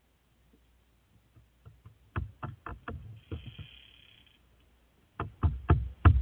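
Crow pecking at a wooden deck railing with its bill: two quick runs of about five sharp taps each, about two seconds in and again near the end, the second run louder.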